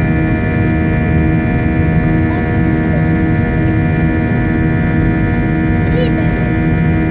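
Cabin noise of an Airbus A320-232: a steady drone of its IAE V2500 turbofan engines with several constant tones over a low rumble, holding level throughout.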